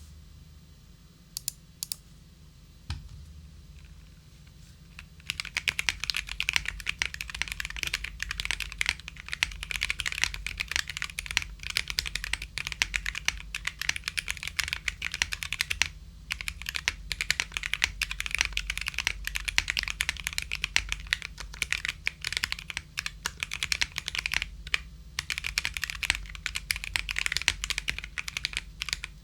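Mechanical keyboard with lubed and filmed Gateron Yellow linear switches on a polycarbonate plate being typed on. A few single keystrokes first, then fast continuous typing from about five seconds in, with short pauses.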